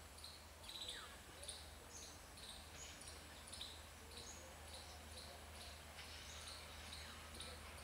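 Birds calling in the trees: many short, high chirps repeating about twice a second, with an occasional falling note. A faint low steady hum lies underneath.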